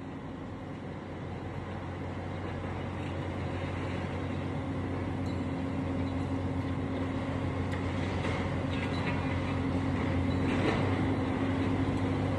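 Steady low mechanical hum, like a machine's engine running, slowly growing louder, with a few faint clatters near the end.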